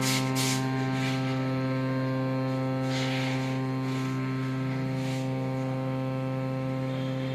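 Reed harmonium holding one steady note with two reed sets sounding, the tone carrying on with little fall in level, which shows how long the instrument sustains. A few short hisses of air come in over it during the first five seconds.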